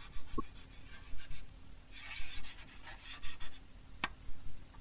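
Chalk writing on a blackboard: a run of short scratching strokes, with a sharp tap about four seconds in.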